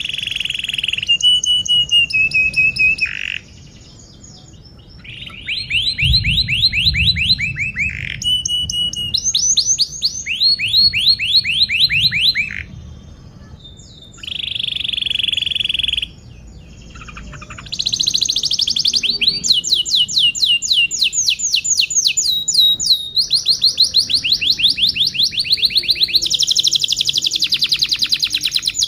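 Domestic canary singing a long, energetic song. Its phrases are rapid trills of repeated high notes, some held on one pitch and some sweeping down, broken by a few short pauses. From about two-thirds of the way in, the song runs on almost without a break.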